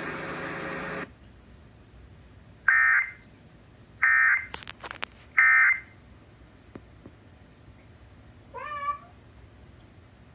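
Emergency Alert System end-of-message signal: three short, loud bursts of warbling digital data tones, evenly spaced, closing the broadcast warning. A steady hiss cuts off about a second in, and near the end a brief, quieter, rising and wavering meow-like call is heard.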